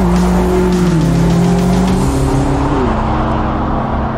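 Twin-turbo V8 of a BMW M8 Competition coupe running at speed, mixed with background music; the sound holds steady and loud, with sustained tones that step down in pitch twice.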